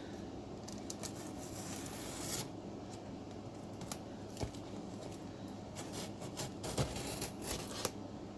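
A cardboard shipping box being opened by hand: scraping, cutting and tearing at the packing tape and cardboard, with a few light knocks and clicks.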